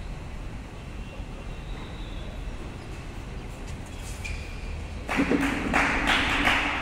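Faint shuttlecock hits of badminton rackets over a steady hall hum. Then, about five seconds in, loud shouting and cheering breaks out as the rally ends.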